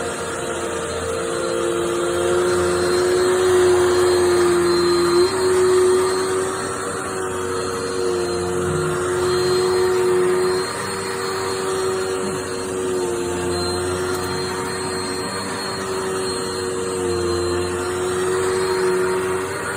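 Dirt Devil Multi-Surface+ upright bagless vacuum cleaner running with a steady motor whine, its pitch dipping and recovering a few times.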